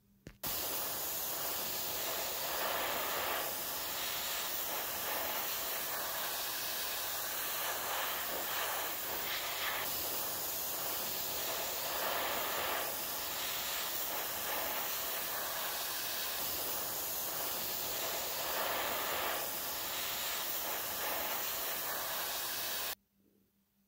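Paint being sprayed onto small model car parts: a steady hiss that starts suddenly just after the beginning and cuts off suddenly about a second before the end.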